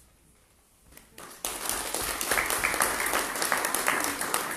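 Audience applauding, starting about a second and a half in after a short quiet.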